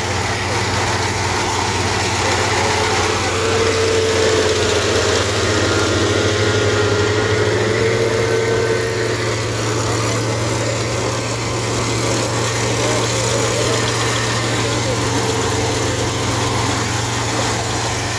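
Kubota SR55 Pro mini combine harvester's diesel engine running steadily under a dense mechanical clatter. A mid-pitched whine comes up over the hum in the first half.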